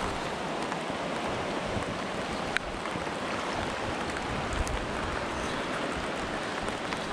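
River water flowing steadily, an even rushing hiss, with a couple of small clicks a few seconds in.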